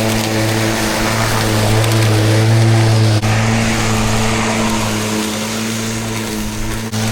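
Milwaukee M18 cordless lawn mower's electric motor running with a steady low hum, dipping briefly about three seconds in and again near the end.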